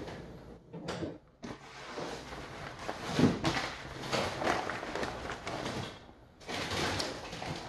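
Grease-soaked butcher paper rustling and crinkling in irregular handfuls as it is peeled back and folded off a smoked beef brisket, with brief pauses about a second in and again near the end.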